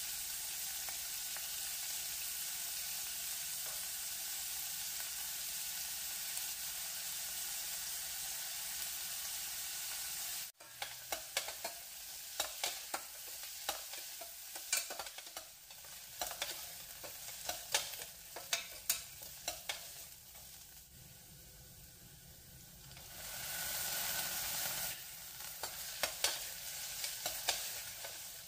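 Chopped onions sizzling steadily in hot oil in a stainless steel pan. After a cut about ten seconds in, a spatula scrapes and clicks against the pan as they are stirred, with sizzling underneath and a brief louder sizzle near the end.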